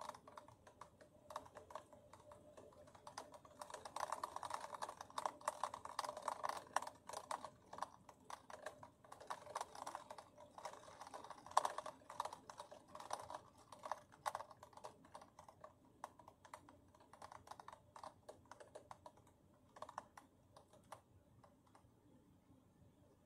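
Raindrops tapping irregularly against a window pane, thickest in gusts about four and ten seconds in, then thinning to scattered taps near the end.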